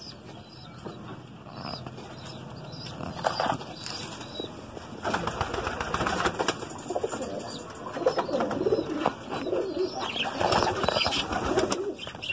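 Domestic pigeons cooing, the coos growing more frequent and overlapping from about halfway through, with scattered light taps.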